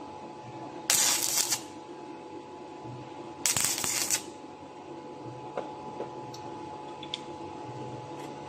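Two short bursts of stick-welding arc crackle, each under a second, a 1/8-inch 6013 electrode at 120 amps striking quick tack welds on thin 18-gauge galvanized steel. A steady low hum runs underneath.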